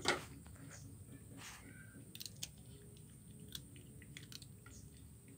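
A kitten chewing and crunching fish bones: scattered small crisp clicks, with a brief louder rustle right at the start.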